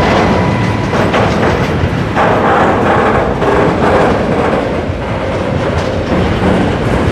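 Freight train of tank wagons rolling past close by: a loud, steady rumble of steel wheels on rail with repeated clacks as the wheelsets pass over the track.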